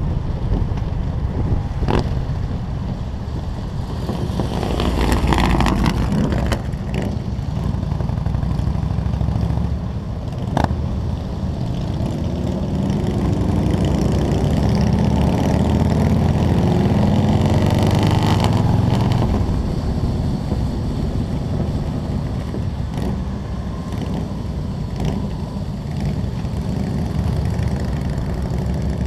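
Motorcycle engines running at highway cruising speed, heard from the rider's seat with wind rushing over the helmet-mounted microphone; the engine noise swells for a few seconds about halfway through.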